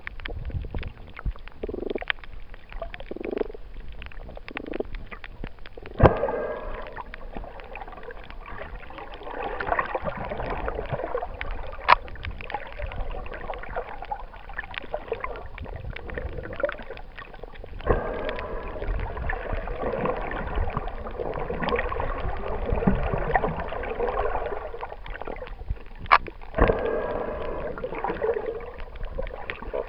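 Muffled underwater sound picked up by a camera in a waterproof housing: water swishing and gurgling in swells that last several seconds, with a few sharp clicks spread through.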